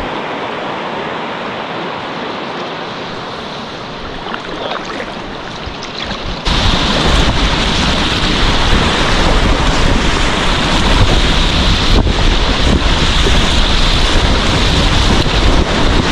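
Whitewater rapids rushing steadily, with low buffeting on the microphone. About six and a half seconds in the sound jumps suddenly louder, with a heavy low rumble under the rush.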